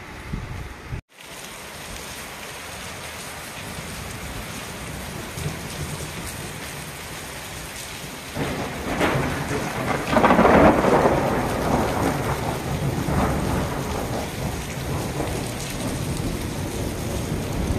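Steady rain falling, with a long rumble of thunder that swells up about halfway through and slowly fades. The sound cuts out briefly about a second in.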